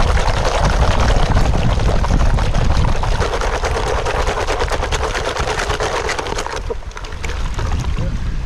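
Mud oysters swirled by hand with water in a plastic bucket to wash the mud off: shells clattering against each other and the bucket, with water sloshing, over wind rumbling on the microphone. The rattling eases off about seven seconds in.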